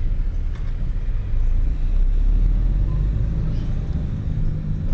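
Taxi's engine and road rumble heard from inside the moving car's cabin: a steady low drone.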